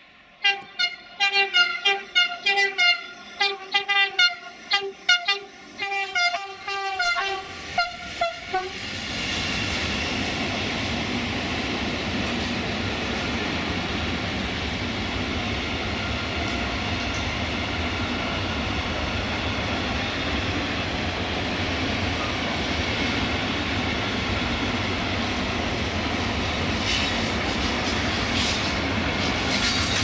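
Siemens Taurus ES64 U2 electric locomotive sounding its horn in a rapid series of short blasts of changing pitch for about eight seconds. Then the steady rolling rumble and rattle of the container freight wagons passing on the rails, with a few sharp clicks near the end.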